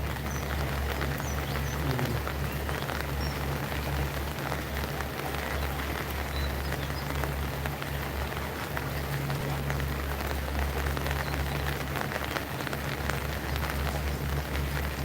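Steady rain falling and pattering on surfaces, a dense even hiss of fine drops, over a constant low hum.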